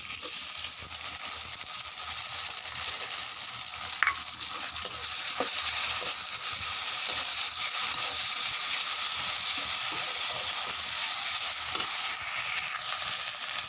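Onions and whole spices sizzling in hot oil in a kadai, with a spatula stirring and scraping, giving occasional ticks against the pan. The sizzle grows a little louder about halfway through.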